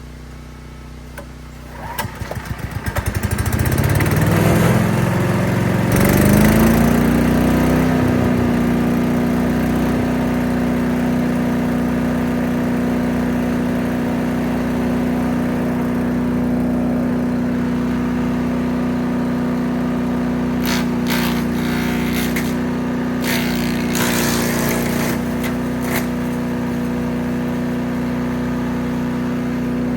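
The small gas engine of a 3-inch wood chipper starting up: its firing strokes quicken and rise in pitch for a few seconds, then settle into a steady full-speed run, with a few short bursts of noise near the end.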